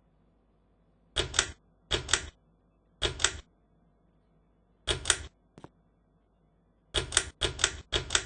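Ceiling fan's switch being clicked repeatedly: seven quick double clicks at uneven intervals, with one fainter click between them.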